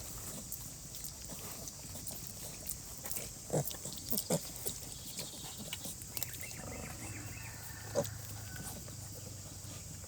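Domestic pigs, a sow and her piglets, grunting now and then at rest: a few short grunts over a steady high hiss, with a low drawn-out sound in the second half.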